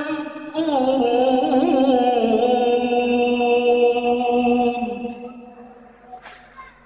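Male Qur'an reciter in the melodic mujawwad style, drawing out the last word of a verse in one long ornamented note with a wavering pitch. Some five seconds in it trails off into the hall's echo.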